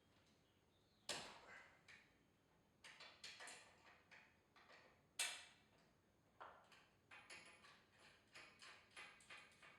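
Sharp knocks on garage-door torsion hardware, each with a short ring: two single strikes, then a run of quicker knocks about twice a second over the last few seconds.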